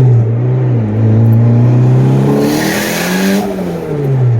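Turbocharged Honda Accord's engine heard from inside the car under way: the revs drop at the start, hold steady, then climb for over a second with a hissing rush over the engine note before falling away again.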